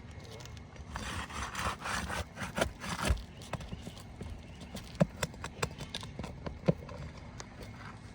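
A tool scraping and rasping under roof shingles for about two seconds, then a run of sharp clicks and knocks as a shingle nail is worked loose, two knocks louder than the rest.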